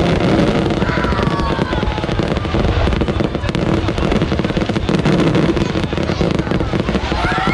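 Fireworks display: a dense, continuous barrage of bangs and crackling shell bursts.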